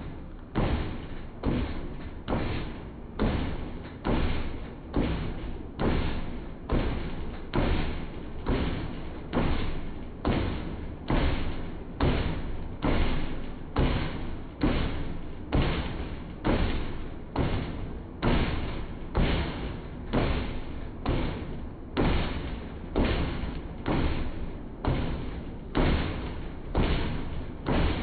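Running shoes striking a high-speed treadmill's belt and deck in a steady rhythm of heavy thumps, slowed down with slow-motion footage of a sprint.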